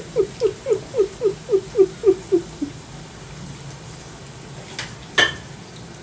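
A kitten eating small raw fish makes a quick run of about ten short sounds, each falling in pitch, at roughly four a second for about two and a half seconds. A single sharp click comes near the end.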